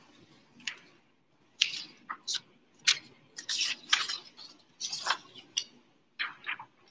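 Printed paper sheets rustling and crackling as a certificate is picked up and handled, in a string of short irregular strokes.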